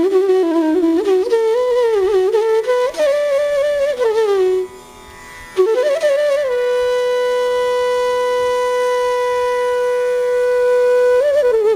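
Indian classical intro music: a single melodic line with sliding, ornamented notes over a steady drone. It breaks off briefly about five seconds in, then holds one long note for about five seconds before sliding again near the end.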